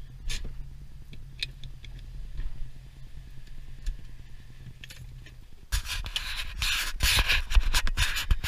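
Low steady hum of the Mustang GT's 5.0 V8 idling with a few light clicks, then from about six seconds in loud, irregular rubbing and scraping of the camera being handled right at the microphone.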